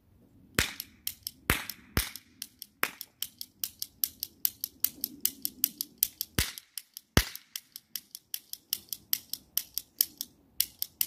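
Toy cap gun fired empty, its trigger and hammer snapping over and over at about three or four clicks a second, with a few much louder snaps among them.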